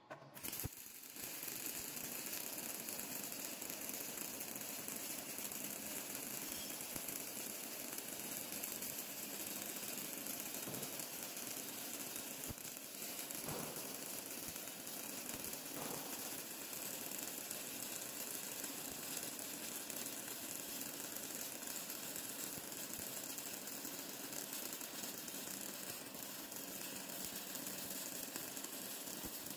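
Metal lathe running steadily: a continuous mechanical whir with a hiss over it and a few faint knocks.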